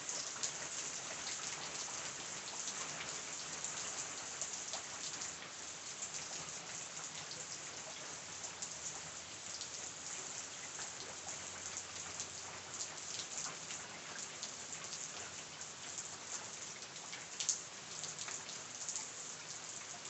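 Steady rain falling on a surface, an even hiss full of small drop ticks, with one louder drop about three-quarters of the way through.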